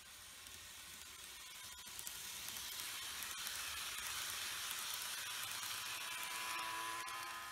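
N-gauge model train (TOMIX E3 series Komachi) running past on its track: a hissing rattle of wheels on rail with a thin motor whine. It grows louder as the train approaches and passes close, then fades near the end.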